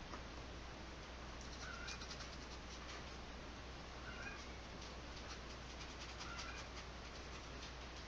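Faint scratchy strokes of a paintbrush scrubbing acrylic paint onto canvas. A short, high animal call sounds about every two seconds.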